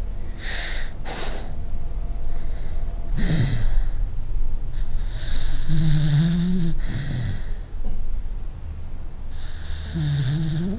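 Dog snoring in its sleep: a series of separate wheezy, snorting breaths. Two of them, about six seconds in and near the end, carry a pitched, voice-like tone.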